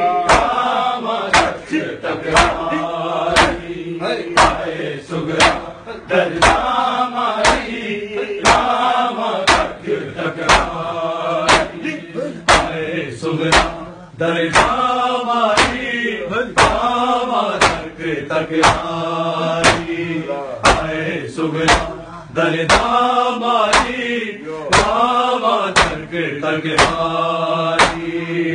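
Group of men chanting a noha in unison while beating their chests in matam: the open-hand strikes on bare chests land as sharp slaps in a steady rhythm about twice a second under the chant.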